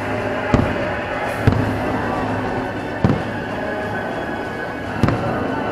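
Fireworks shells bursting, four sharp bangs spread over about five seconds, over steady show music.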